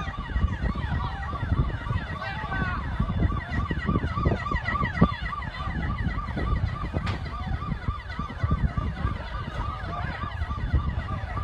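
Emergency vehicle sirens: one repeats a short note about three times a second while others glide down in pitch over it, above a steady low rumble.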